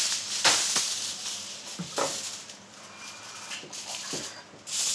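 Sheet of aluminium foil rustling and crinkling as it is pulled off the roll and spread out, with sharper crackles about half a second and two seconds in.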